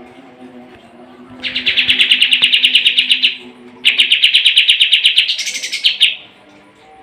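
Pied triller (kapas tembak) singing: two long, fast trills one after the other, the first starting about a second and a half in and the second ending in a rising buzzy flourish. A faint steady low hum sits underneath.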